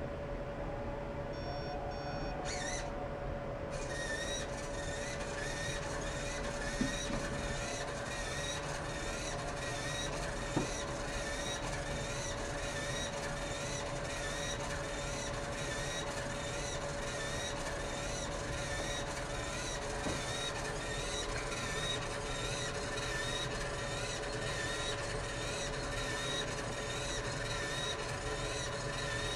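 Pioneer P3-AT mobile robot powered on: a short run of beeps about two seconds in, then a steady electrical hum with a fast, even ticking from its sonar sensors firing.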